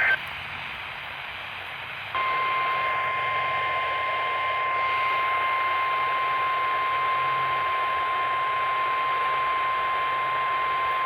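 NOAA Weather Radio broadcast heard through a receiver: about two seconds of radio hiss, then the steady 1050 Hz weather warning alarm tone comes on and holds for about nine seconds over the static. The tone marks the alert being activated for the weekly test.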